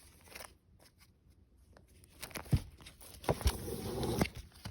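Vinyl record sleeves being handled and flipped through, with a few sharp clicks and papery rustling that pick up about halfway in.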